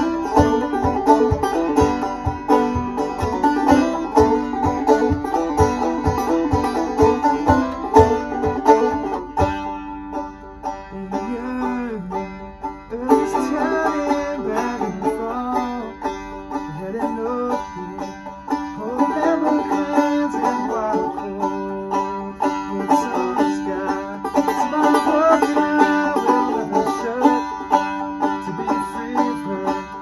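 Banjo-led bluegrass-style instrumental music with quick picked notes. A steady low beat about twice a second keeps time for the first nine seconds or so, then drops out, and the playing carries on with some bent notes.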